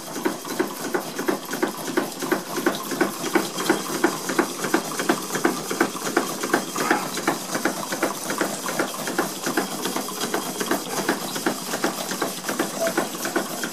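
Four Stuart model steam engines, a beam engine and an S50 among them, running together on steam from a Stuart 504 boiler. Their strokes make a rapid, uneven chuffing clatter over a light steam hiss.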